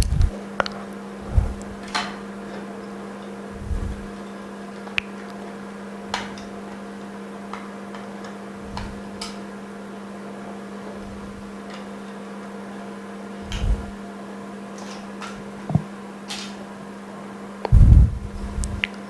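Steady machine hum of phone-repair workshop equipment, with scattered light clicks and low knocks from a phone screen and a metal alignment mold being handled. The loudest knocks come near the end.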